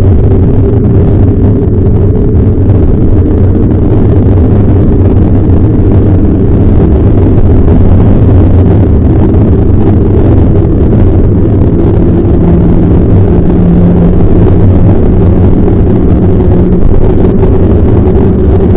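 Loud, steady wind buffeting and road rumble on a mountain bike's fork-mounted action camera while riding on asphalt, a deep constant roar with a low hum from the rolling tyre.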